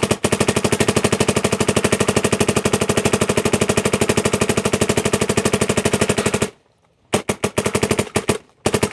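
Dye MXR electronic paintball marker firing on compressed air: a long, rapid string of shots at about a dozen a second that stops about six and a half seconds in, followed by a few short quick bursts near the end.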